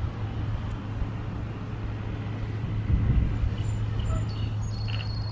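Steady low outdoor background hum, with a brief low rumble about three seconds in and a few faint high chirps near the end.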